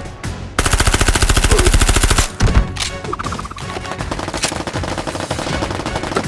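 A burst of rapid automatic fire lasting about a second and a half as a Nerf blaster is fired, sounding like machine-gun fire. Music plays underneath, and a quieter rhythmic pattern carries on after the burst.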